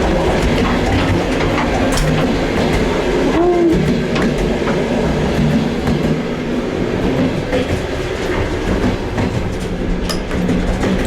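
Old Soviet-style passenger train running, heard from inside the moving wagons: a steady rumble and rattle with a few sharp clicks from the wheels and joints, and a short squeak about three and a half seconds in.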